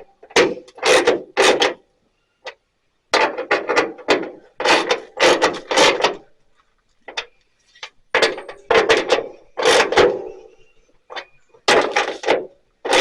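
Screws being tightened into the thin sheet metal of a truck hood with a hand ratchet: groups of short rasping, clicking strokes with pauses between them, loudest in the first half.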